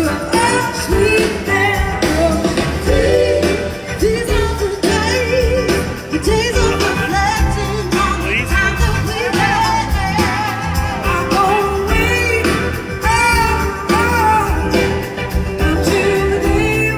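Live soul-rock band playing with a lead vocal singing over drums, bass and guitar, as heard from the audience.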